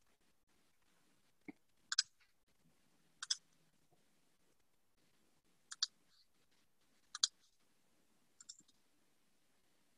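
Computer mouse clicking: five quick double clicks about a second or two apart, with a soft knock just before the first.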